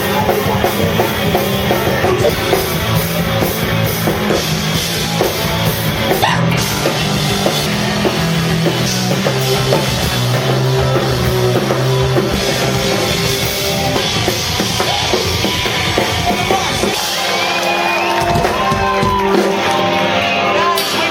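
Loud rock music, punk-leaning, with a drum kit driving it throughout. About seventeen seconds in the low bass thins out while the guitars and drums carry on.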